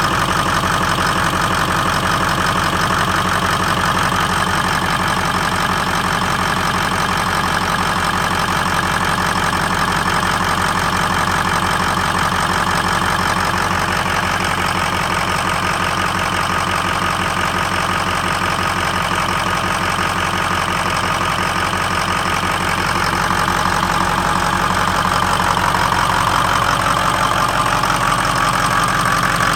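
A Ford 6.0L Powerstroke V8 turbodiesel idling steadily, a little louder near the end. The idle is rough, which the owner puts down to a misfire or rough running.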